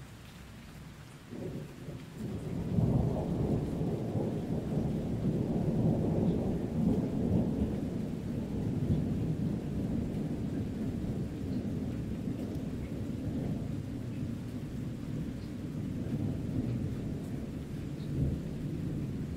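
Thunder rolling: a deep rumble starts about one and a half seconds in, swells a second later and keeps rolling on, over steady rain.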